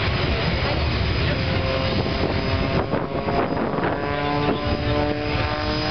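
Aerobatic propeller plane's engine droning overhead, with a steady hum of several held tones from about two seconds in, and wind buffeting the microphone.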